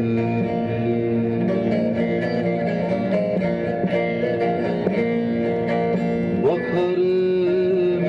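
Background music: an instrumental passage of a Turkish folk song, carried by plucked strings with held, changing notes and a quick slide up about six and a half seconds in.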